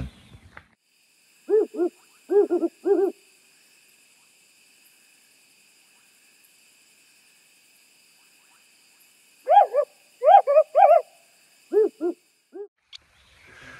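African wood owl hooting: a short rhythmic group of three or four hoots about one and a half seconds in, then a longer, higher-pitched series of hoots from about nine and a half seconds to near the end.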